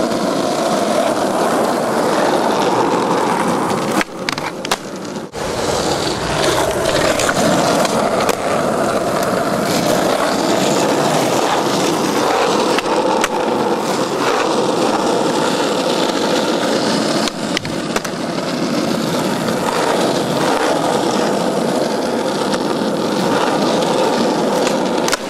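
Skateboard wheels rolling steadily over rough street asphalt, with a few sharp clacks of the board, a cluster of them about four to five seconds in.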